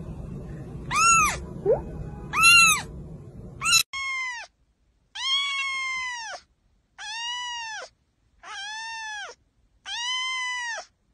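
Cats meowing: a kitten gives three short, high meows, then a second cat gives five long, drawn-out meows in a steady series, about one every second and a half.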